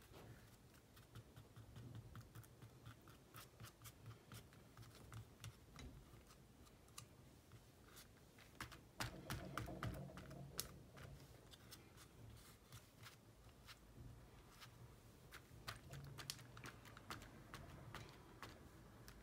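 Quiet, irregular small clicks and rustles of hands pressing and smoothing glued lace and paper onto a cardboard folder, with a louder patch of clicking and scuffling about nine to eleven seconds in.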